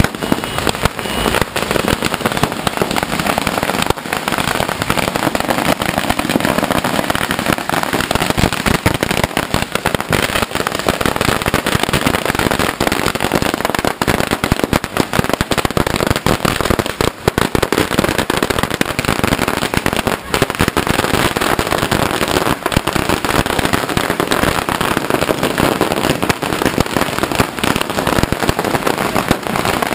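Firecrackers going off in a dense, unbroken barrage of rapid bangs and crackles.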